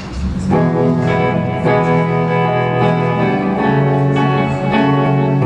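Instrumental intro of a soft pop song: sustained keyboard chords with guitar, the chords changing every second or two.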